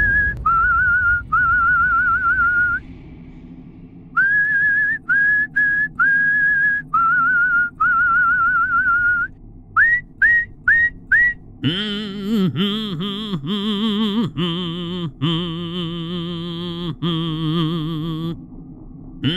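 Music: a whistled tune with vibrato, held notes broken by a few quick upward slides, then past the halfway point a lower, fuller wavering melody takes over.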